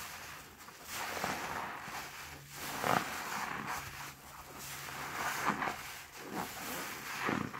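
A soapy yellow HDX sponge squeezed and kneaded by hand in thick suds, giving repeated wet squelches and crackling foam, about one squeeze every second.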